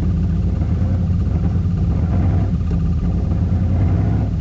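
305 cubic-inch Chevrolet V8 of a Chevrolet K1500 pickup idling in reverse gear, heard from inside the cab: a steady low rumble.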